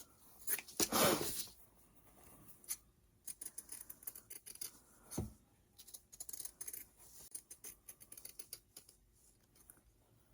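Scissors cutting a traced circle out of fabric: a run of short snips, with a louder, longer sound about a second in.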